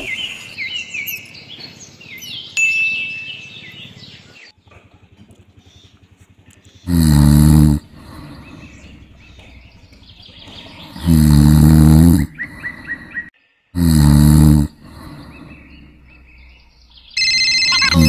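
Cartoon snoring sound effect: three loud drawn-out snores with light bird chirping before them. Near the end another snore comes in under a steady high electronic tone.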